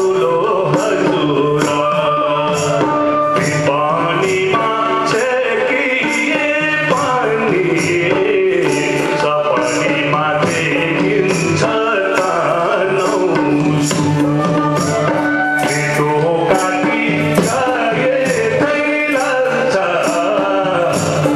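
Live Nepali folk music: harmonium and bamboo flute carrying the melody over tabla drumming that keeps a steady beat.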